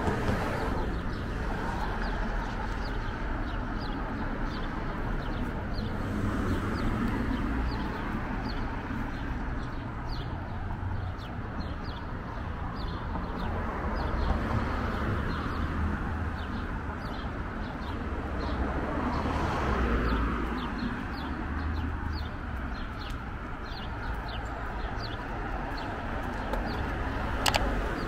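Street ambience: a steady low traffic rumble, with a small bird chirping over and over. A sharp click near the end.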